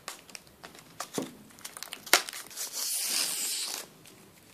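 Clear protective plastic film being peeled off a new laptop's keyboard deck: crinkling and crackling, with one sharp snap about two seconds in and a longer dense rustling stretch just after.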